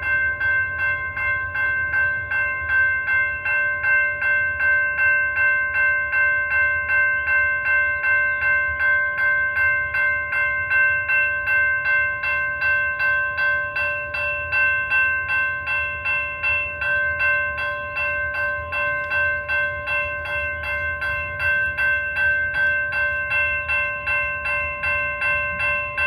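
Railroad crossing signal bell ringing with rapid, even strikes and a steady metallic ring. The crossing is activated with no train present, a signal malfunction.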